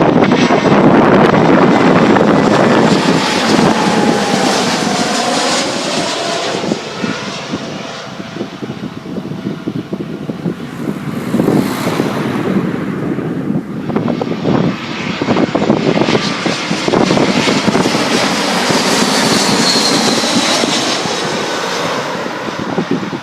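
Jet airliner engines passing close by on approach, a loud rushing roar with a faint falling whine a few seconds in. The roar eases off partway through and then swells again, with a thin high whine near the end.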